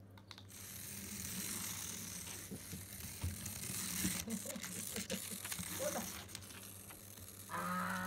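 Small electric motor of a remote-control toy mouse whirring, with clicks and scrapes as a dog mouths it. Near the end a short voice-like sound slides downward in pitch.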